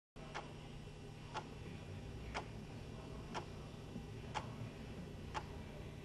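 A clock ticking once a second over a steady low hum, starting suddenly out of dead silence just after the beginning.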